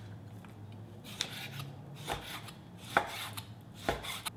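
Chef's knife chopping raw pork belly on a wooden cutting board: about four separate knocks of the blade on the board, unevenly spaced.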